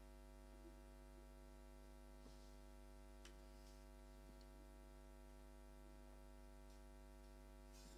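Near silence: a steady electrical hum, with a few faint clicks.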